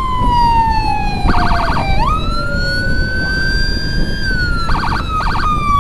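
Electronic emergency siren wailing, its pitch gliding slowly down, then sweeping up and holding before falling again. Twice it is cut into by rapid stuttering 'jackhammer' bursts, the trembling 'geter-geter' siren of the ambulance. Wind and road noise from the moving motorcycle sit beneath.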